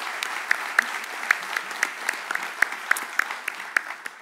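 Audience applauding, with many individual sharp claps standing out; the applause fades away near the end.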